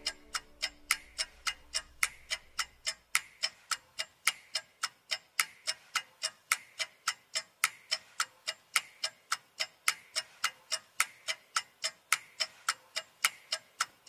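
Clock ticking steadily, about three sharp ticks a second.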